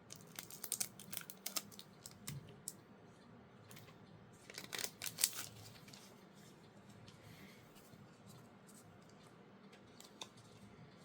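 Faint clicks and rustles of trading cards and a foil booster-pack wrapper being handled, busiest about four to five seconds in.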